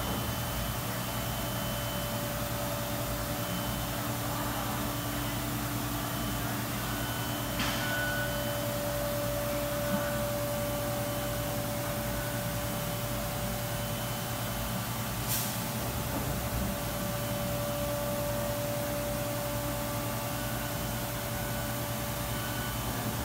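Thermwood five-axis CNC router running: a steady mechanical hum with a steady whine that grows stronger about a third of the way in. Two brief sharp clicks stand out, one about a third of the way in and one about two-thirds of the way in.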